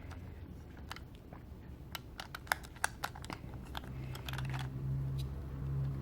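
Small sharp clicks and taps of a stamp set and its plastic packaging being handled, scattered irregularly. A low steady hum comes in about four seconds in.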